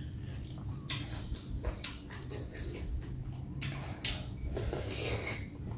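Close-up eating sounds: a person chewing a mouthful of noodles, with short wet clicks and smacks that come and go, over a steady low hum.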